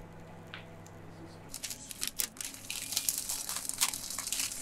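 A steady low hum, then rapid crinkling and tearing starting about a second and a half in.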